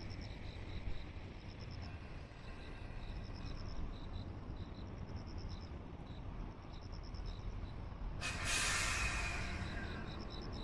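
A sudden loud hiss of compressed air vented from a locomotive, about eight seconds in, fading away over a second and a half. Underneath, a low steady rumble and faint high chirps repeating in short groups.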